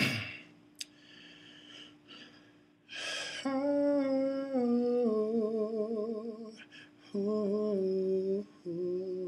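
A man's voice humming a wordless a cappella melody, starting with a sharp intake of breath. About three and a half seconds in he holds a long note with vibrato that steps down in pitch, then sings two shorter notes after another breath.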